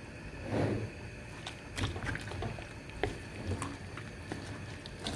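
Wooden spatula stirring chunks of seasoned meat in a wet aluminium pot: irregular knocks and scrapes of wood on meat and metal, with wet shuffling, the loudest just under a second in.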